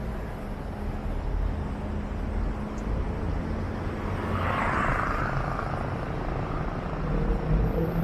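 Steady low rumble of city road traffic, cars and motorcycles driving past. About halfway through, a passing vehicle swells up and fades, and a vehicle engine grows louder near the end.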